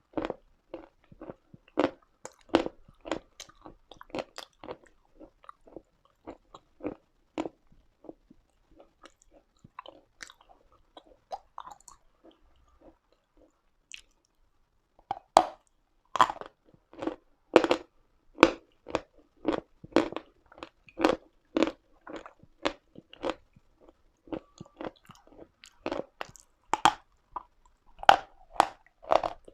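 A person biting and chewing crunchy Uslada chalk close to the microphone, a quick run of crisp crunches. About halfway through the crunching pauses for a couple of seconds, then resumes louder and denser.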